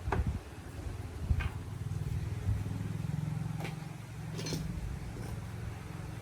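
Small motorbike engine running steadily at low speed, getting a little louder about two and a half seconds in, with a few sharp metallic clicks over it.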